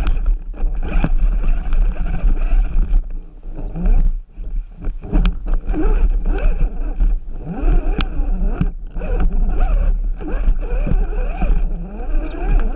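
Electric motor and gear drivetrain of an RC rock crawler whining, the pitch rising and falling with the throttle, over a steady low rumble. Sharp knocks and clatter come as the tires and chassis strike rocks.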